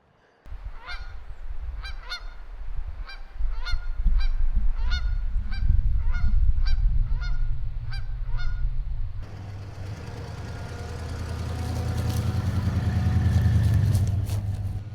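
Geese honking, a short call roughly every half second to second, over a low rumble. About nine seconds in this gives way to the steady hum of a vehicle engine running, swelling louder toward the end.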